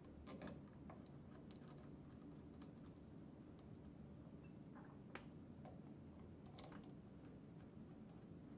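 Faint, irregular light metallic clicks as cap screws are picked up and threaded by hand into a pump's end cap, with a low room hum underneath.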